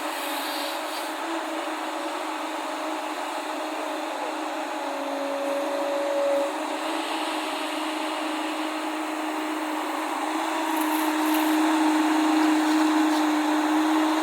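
JCB excavator's diesel engine running steadily as it works, growing louder and a little higher in pitch about ten seconds in.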